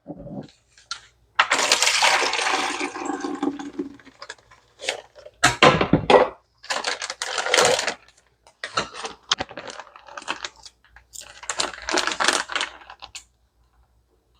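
Kitchen handling noises: a pour or rush of liquid lasting a couple of seconds, starting about a second and a half in, then a run of irregular clatters and knocks of containers being handled.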